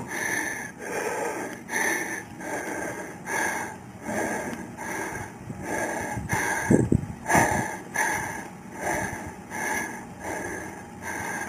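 Quick, even, rhythmic breathy panting, about two breaths a second, with a brief pitched sound about seven seconds in.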